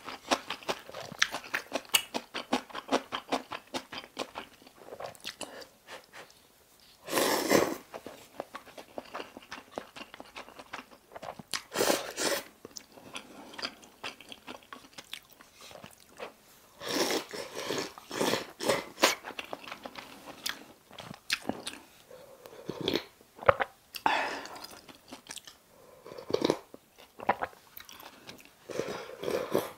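Close-miked eating of instant ramyeon noodles: wet chewing with rapid mouth clicks, broken by several louder slurps about a second long.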